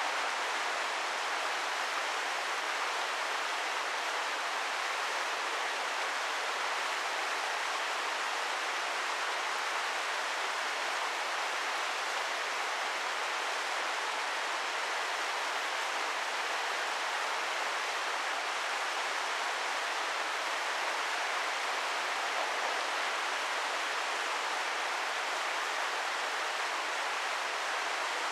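Shichigen Falls, a small waterfall, running with a steady, even rush of falling water.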